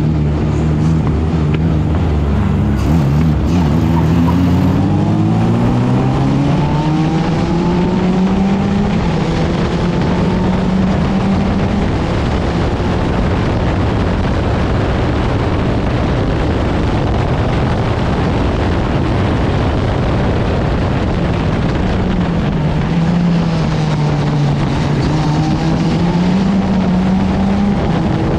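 Open-wheel formula race car's engine, heard from the cockpit: it starts low, then rises steadily in pitch over several seconds as the car accelerates, and holds at speed over rushing noise. Near the end the pitch dips as the throttle eases, then climbs again.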